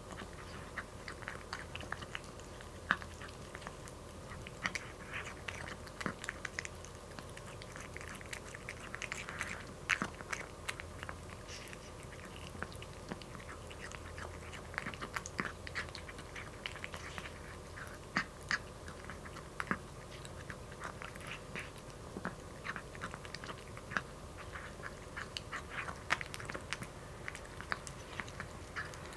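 Cat eating dry kibble from a bowl: a rapid, irregular run of small crunches as it chews.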